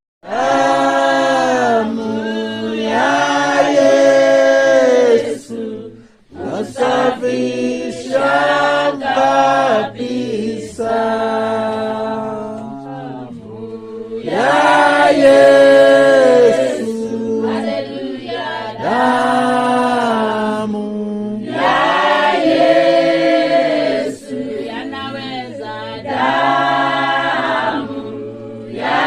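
A choir singing a hymn, several voices together in long held phrases, starting suddenly and breaking off briefly about six seconds in.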